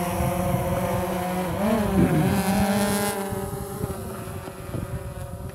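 DJI Phantom 3 Professional quadcopter's four motors and propellers buzzing as it lifts off and climbs. The buzz holds a steady pitch with a brief wobble about two seconds in, then fades as the drone gains height.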